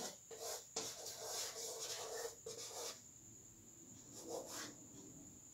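Chalk writing on a blackboard: faint scraping and tapping strokes for about three seconds, then a pause and one more short stroke.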